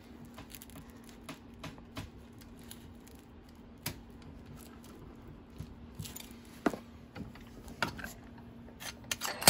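Small steel sheet-metal patch being bent by hand in a bench vise: scattered metallic clicks and knocks as the panel is pushed and flexed, with a few louder knocks in the second half. A steady low hum runs underneath.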